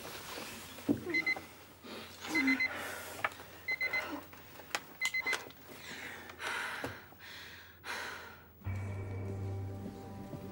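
Electronic beeping: four short, rapid trills of a high tone about a second and a quarter apart, among scattered knocks and rustling. Near the end a steady low hum with held tones takes over.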